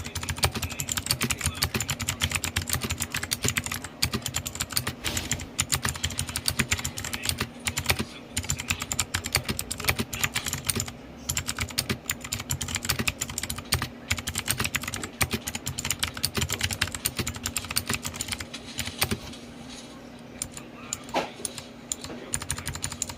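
AULA F3261 mechanical keyboard with clicky blue switches being typed on rapidly, a dense run of sharp key clicks. The typing thins out over the last few seconds.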